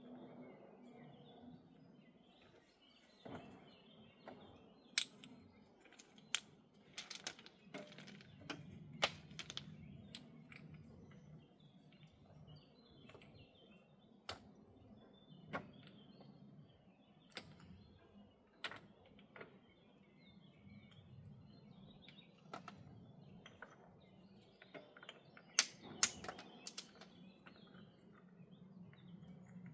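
Stones clacking and knocking against each other as they are set and fitted by hand into a dry stone wall: irregular sharp clicks, a few much louder than the rest.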